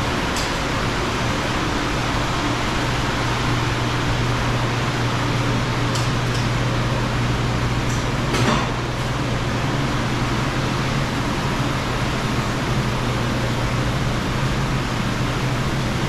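Steady hum and hiss of refrigeration and ventilation machinery, with a few faint clicks and a short brush of noise about eight and a half seconds in.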